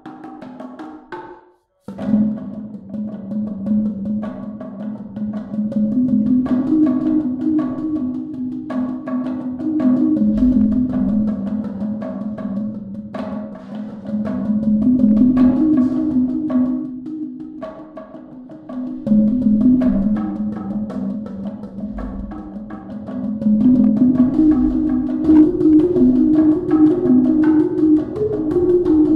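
Giant wooden xylophone played with mallets: after a brief pause about two seconds in, a fast, steady stream of low wooden notes struck on the big bars, the line of notes climbing higher near the end.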